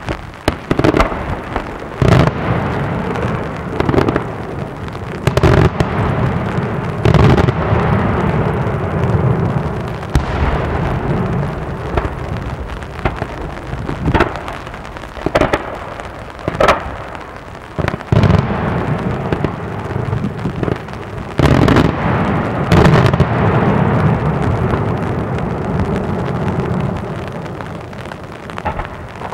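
Daytime aerial fireworks: a rapid series of loud shell bursts, roughly one every second or two, over a continuous rumble and crackle of smaller reports. The barrage thins out near the end.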